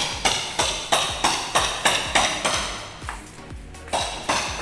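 Rapid, regular hammer blows with a metallic ring, about three a second, pausing for about a second around three seconds in before resuming.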